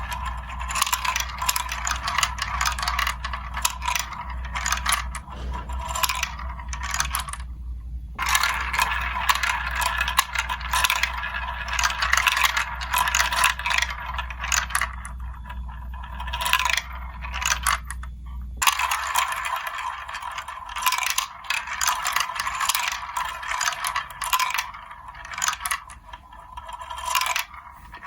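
Marbles rolling and clattering down a plastic building-block marble run: a constant stream of clicks, rattles and rolling scrapes, with brief lulls. A low hum underneath stops about two-thirds of the way through.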